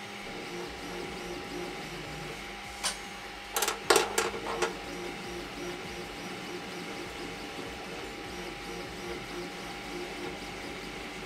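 Geeetech MeCreator 2 3D printer running a print: its stepper motors hum and whine steadily in a stepping pattern. A few sharp clicks and knocks come about three to four and a half seconds in.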